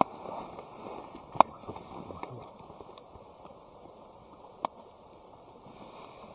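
Steady rush of a river flowing, with a few sharp clicks over it, the loudest about a second and a half in.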